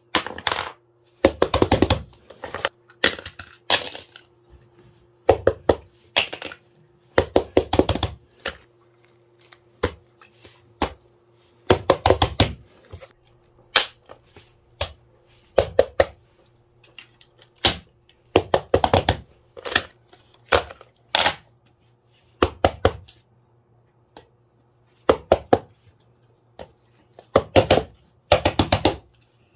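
Clusters of sharp plastic clicks and taps every second or two, some as quick runs of clicks, from fidget toys being handled and popped. A faint steady hum lies underneath.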